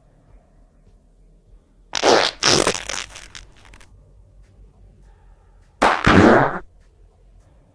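Two farts: a noisy, sputtering one about two seconds in, then a shorter one near the end whose pitch drops as it goes.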